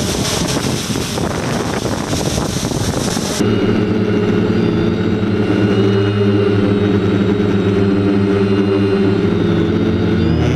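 Wind noise on the microphone for the first three seconds or so, then an abrupt switch to the close-up drone of a DJI F550 hexacopter's six motors and propellers, a steady hum of several tones heard from the GoPro mounted on it.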